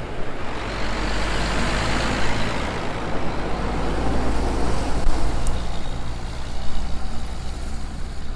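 John Deere tractor engine running steadily while spreading urea, with a broad rush of noise that swells to a peak about two seconds in and then fades.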